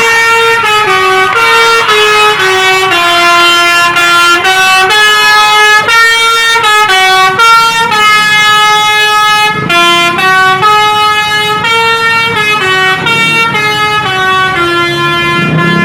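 A tour bus's telolet horn playing a loud melody: steady horn notes that jump to a new pitch every half second to a second, with no pause.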